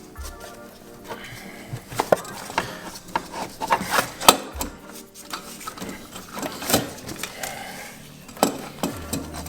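Irregular clicks, knocks and rubbing of a charge pipe being twisted and worked down into a car's engine bay, hard parts bumping against surrounding components.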